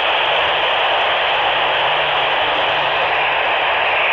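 Steady hiss of FM static from a Baofeng BF-F8HP handheld radio tuned to the AO-91 (Fox-1B) satellite downlink, with no voice coming through between transmissions.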